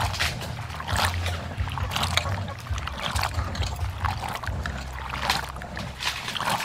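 Lotus seeds being washed by hand in a metal bowl of water: water splashing and wet seeds clattering against each other and the bowl in irregular surges about once a second, over a low steady hum.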